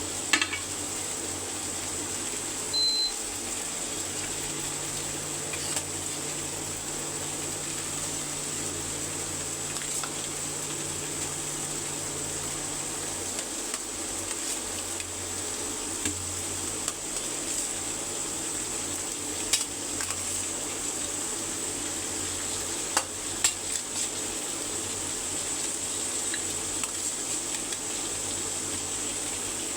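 Curry sizzling in hot oil in a cooking pot, with a steady hiss and a spoon stirring and now and then clicking against the pot.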